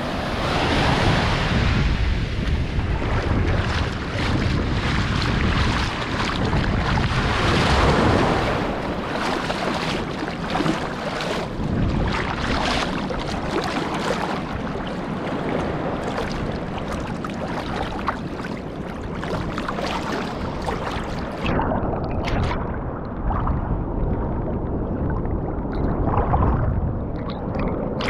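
Sea waves washing in and out in slow surges, with wind buffeting the microphone. About 21 seconds in, the sound turns muffled and loses its hiss.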